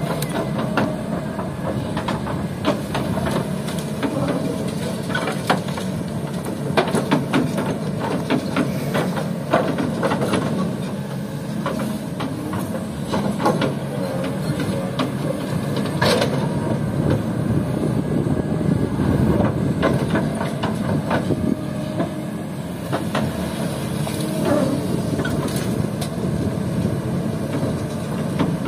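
Kobelco SK200 excavator's diesel engine running steadily as it digs sand and gravel, with frequent clanks and rattles from the bucket and stones, and one sharp knock about halfway through.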